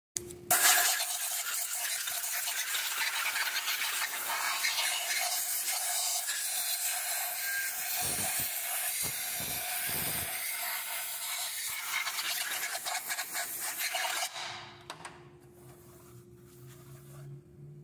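Steady scrubbing noise of something worked back and forth by hand over the surface of a VW AP cylinder head. It stops about fourteen seconds in, leaving a faint low hum.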